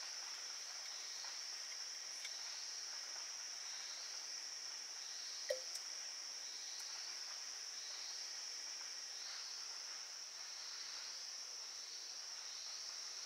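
Insects chirring steadily in the forest, a continuous high-pitched trill that pulses faintly about every second and a half. A single brief sharp knock about five and a half seconds in.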